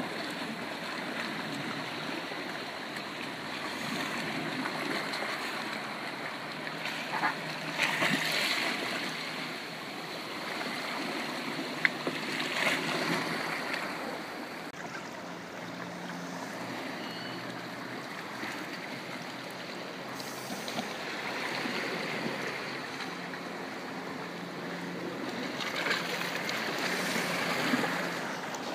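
Sea water lapping and washing against rocks and a kayak hull, with a few louder splashes and one sharp click.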